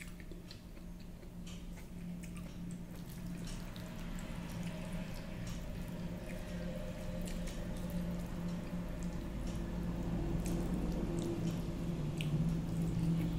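Fingers mixing rice with dal and curry on a steel plate: wet squishing with small clicks against the metal, over a steady low hum.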